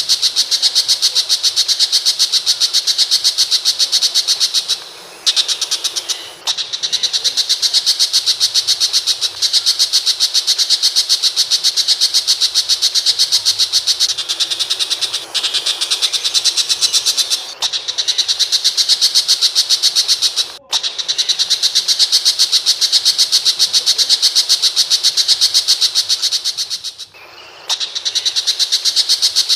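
Tiger shrike (pentet macan) giving long runs of rapid, harsh, high-pitched chattering notes in an even rattle, broken by short pauses several times.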